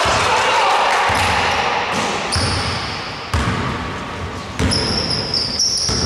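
Basketball bouncing on a hardwood gym floor, a dribble thud roughly every second. High shoe squeaks come in about halfway through and again near the end.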